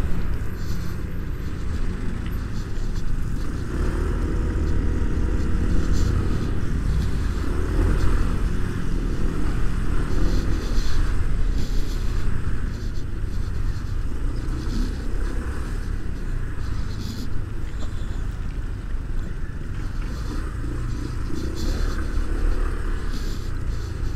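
Steady low rumble of wind and road noise while riding a motor scooter.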